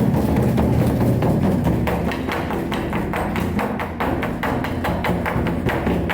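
Music with steady low notes and quick, sharp clicking percussion, about four or five strokes a second.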